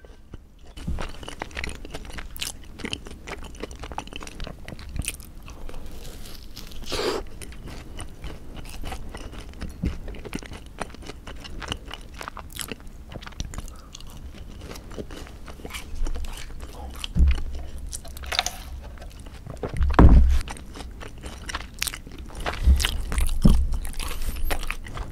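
Close-up chewing of a fried cheese ball with a chewy rice-cake shell and cheese filling: soft crunching and wet mouth clicks, with a few louder low thumps in the second half.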